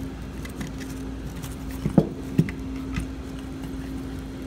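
Parts of a torn-down LG linear compressor's stator, the plastic coil housing and its laminated metal core segments, knocking together as they are pulled apart by hand. There are two sharp knocks about two seconds in, then a lighter click, over a steady background hum.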